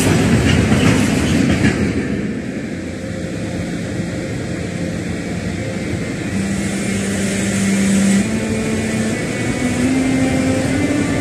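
Freight train tank wagons rolling past with wheel clatter for about the first two seconds. Then a Hector Rail class 242 (Siemens ES64U2 Taurus) electric locomotive's traction converter gives a steady tone from about six seconds in, stepping up in pitch several times as the locomotive gathers speed.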